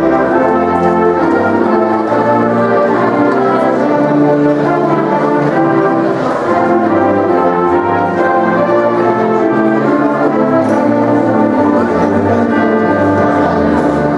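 High school symphonic band playing sustained chords, led by trombones, horns and trumpets over a low bass line.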